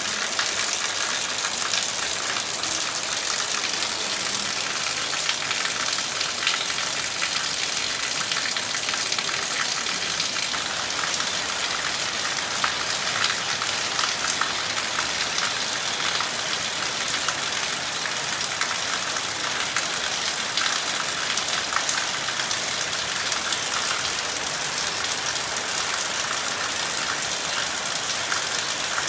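Heavy rain falling steadily on leaves and the ground, a dense even hiss with many individual drop ticks and no thunder.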